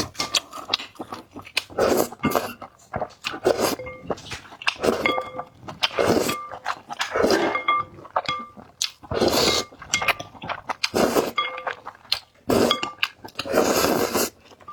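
Close-miked eating: loud slurps and chewing of noodles and soup in repeated bursts about a second long, with utensils clinking against a bowl in short ringing taps between them.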